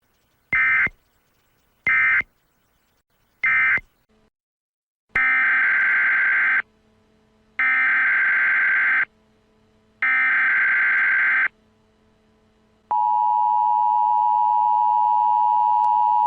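Emergency Alert System tones. Three short digital data bursts come first, then three longer bursts of SAME header data of about 1.5 s each. About 13 s in, the steady two-tone EAS attention signal starts and holds.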